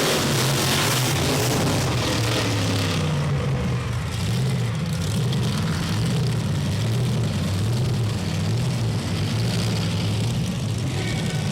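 Monster truck engine running hard, its pitch repeatedly rising and falling as the throttle is worked. A loud rushing noise sits over it for the first three seconds or so.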